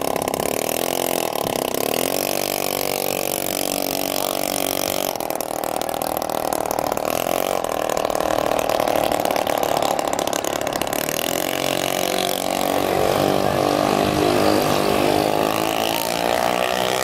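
Small two-stroke moped engine running and revving as the rider pulls away, its note gliding up and down in the first few seconds, then holding steady. A louder engine note takes over about two-thirds of the way in.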